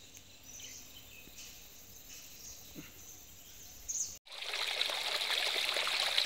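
Faint birds chirping over quiet forest air, then, about four seconds in, a shallow stream trickling over stones, noticeably louder.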